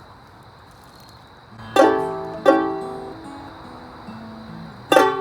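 A banjolele (banjo ukulele) and a guitar start playing together: after a short pause, three strummed chords, about two seconds in, half a second later and near the end, each ringing out over lower held notes.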